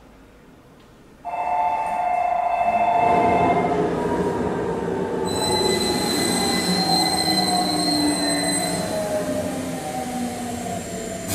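Subway train running with its wheels squealing on the rails: several high screeching tones, some sliding slowly down in pitch, over a steady rumble. It starts suddenly about a second in, and higher squeals join about five seconds in.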